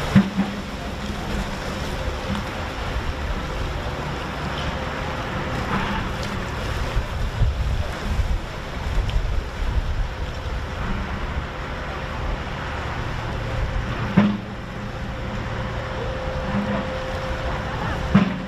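Choppy sea washing in, with wind gusting across the microphone; a few sharp thumps stand out, the loudest about fourteen seconds in.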